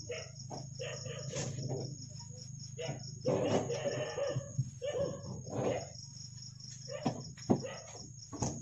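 Crickets chirping steadily over a low hum, with rustling and clinking as beer cans are taken out of a small refrigerator. A few sharp knocks come near the end, the loudest about seven and a half seconds in.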